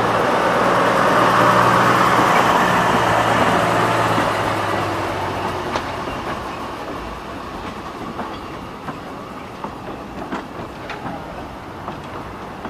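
Hudswell-Clarke 0-6-0DM narrow-gauge diesel-mechanical locomotive of 1952 pulling away with its engine running loud, then fading after about five seconds as it moves off. The coaches then roll past with a series of sharp clicks from the wheels over the rail joints.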